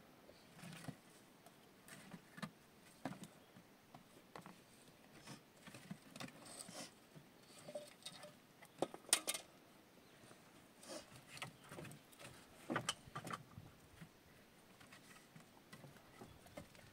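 Wooden poles and branches being handled and set against the rock: irregular light knocks, clicks and scraping of wood on wood and stone, with a louder cluster of knocks about nine seconds in.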